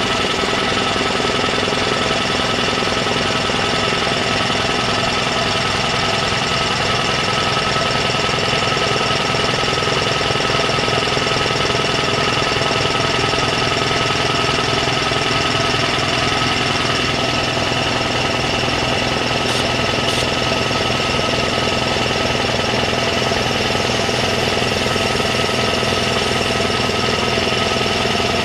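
A portable electric piston air compressor running steadily while it pumps up its tank. Its motor hums and the pump beats in a fast, even pulse.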